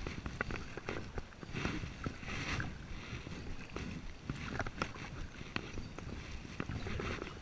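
Double-bladed kayak paddle strokes, the blades dipping and pulling through calm water with irregular splashes, drips and clicks, over a low rumble.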